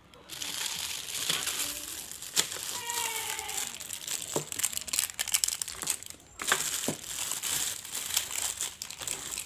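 Thin plastic wrappers crinkling and crackling as small toy packets are pulled open by hand, with many sharp little crackles in an irregular run.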